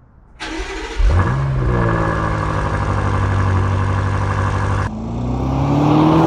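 BMW F90 M5 Competition's twin-turbo V8 cold-starting on its stock exhaust: brief cranking, then it catches about a second in with a quick flare and settles into a steady, even idle. Near the end the car is heard accelerating toward the listener, its engine note rising.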